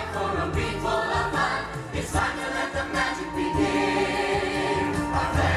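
Stage-show musical number: an ensemble of voices singing together over a full backing track, with long held notes in the middle.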